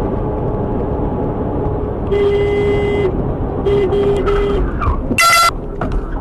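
Vehicle horn honking in traffic over steady road and engine noise: two held honks of about a second each, then a short, sharper horn blast near the end.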